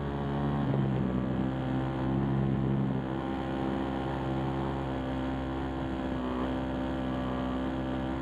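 RC aircraft's motor and multi-blade propeller running steadily, picked up close by the onboard camera's microphone: a continuous hum of several evenly spaced tones. Its pitch shifts a little about a second in and again around three seconds in as the throttle changes.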